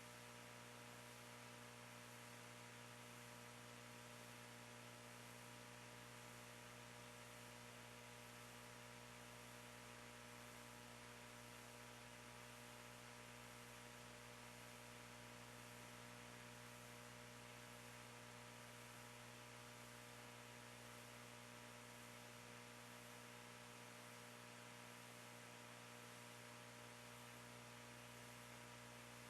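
Near silence: a steady electrical mains hum with faint hiss, unchanging throughout.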